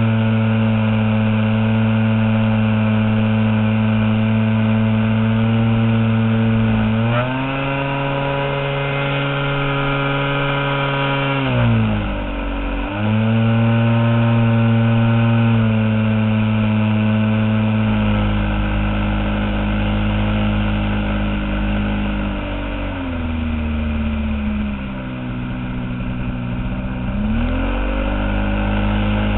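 Engine of a giant-scale RC model airplane running in flight, its note rising and falling with throttle changes: a shift about seven seconds in, a brief dip and climb back around twelve seconds, then throttled back in the second half and opened up again near the end.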